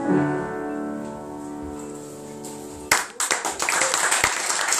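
Final piano chord ringing out and slowly fading, then the audience breaks into applause about three seconds in.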